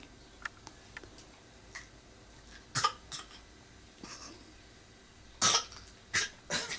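A few harsh coughs: one loud cough about three seconds in and another near the end, each followed by smaller ones, with faint clicks before them.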